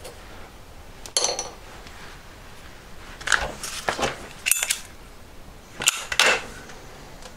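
Small metal jeweller's tools clinking and tapping on the bench: a sharp metallic click with a brief ring about a second in, then several short clusters of clinks.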